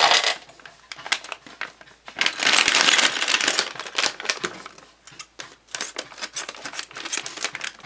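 A crinkly Playmobil blind bag being handled and torn open by hand. The crackling of the packaging is loudest about two to four seconds in, then gives way to scattered short crinkles and clicks as the bag is pulled apart.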